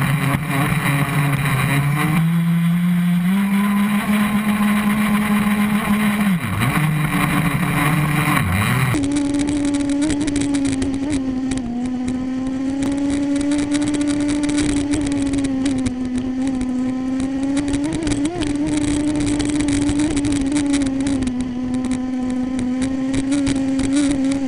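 Radio-controlled model boat motors running at high speed over choppy water. The first motor's pitch steps up twice and briefly drops twice as the throttle changes. About a third of the way in, the sound cuts to a second boat's motor, holding a steady, higher pitch with a slight waver.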